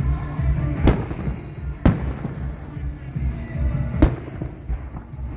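Three loud, sharp bangs, about a second in, about two seconds in and about four seconds in, over a steady low rumble and background music.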